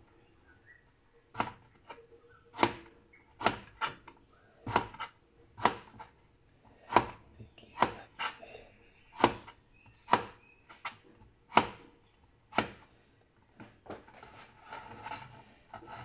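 Kitchen knife cutting burdock root on a plastic cutting board: a string of sharp knocks as the blade meets the board, irregular at about one or two a second. Near the end the knocks turn softer and more scattered.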